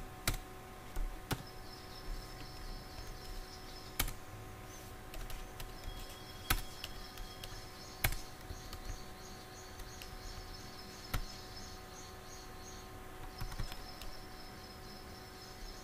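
Scattered single keystrokes on a computer keyboard, sharp clicks a second or more apart, over a faint steady hum and faint high chirping.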